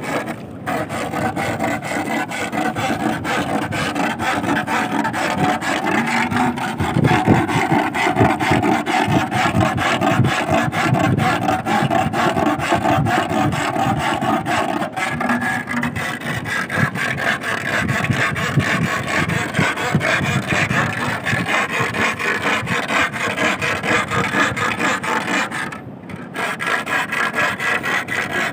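A metal rod rubbed rapidly back and forth across a rusty iron plate standing in wet sand, a continuous rasping scrape that stops briefly once near the end. The noise of the iron is made to draw sea worms (sasing) up out of their burrows.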